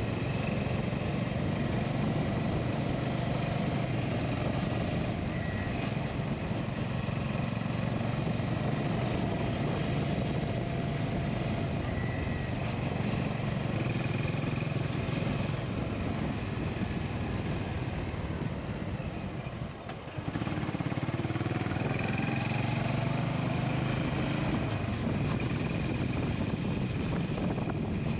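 Honda GB350's single-cylinder engine running steadily under way. About twenty seconds in, the engine note dips briefly, then picks up again with a rising pitch.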